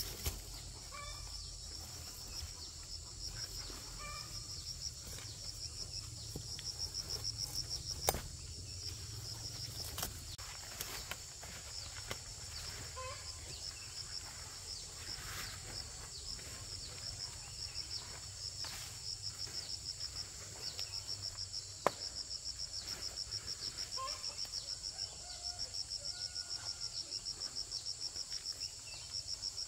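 Crickets chirping in a steady pulsing rhythm, about two to three chirps a second, over a constant high insect drone. Two sharp clicks come through, about eight seconds in and again a little past twenty seconds.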